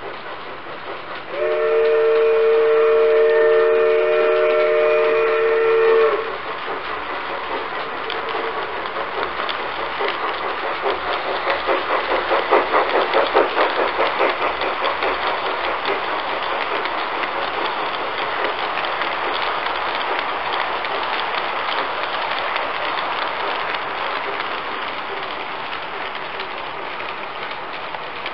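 G-scale model locomotive's sound unit blowing a chime whistle, several tones held together for about five seconds. Then a long train of model hopper cars rolls past close by on the track, a rattling rumble with rhythmic clicking over the rail joints that swells and slowly fades.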